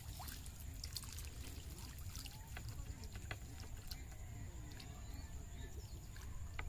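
Water trickling and dripping, with scattered small splashes.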